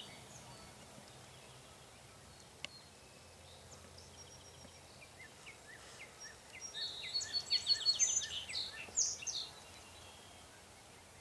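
Songbirds singing in the quiet outdoors: a few faint high chirps, then a run of rapid high trills and repeated notes about two-thirds of the way through. A single sharp click sounds once near the start.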